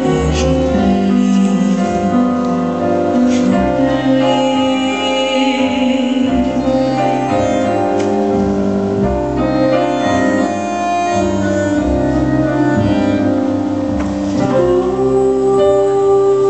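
Tango music playing, its instruments holding long sustained melodic notes.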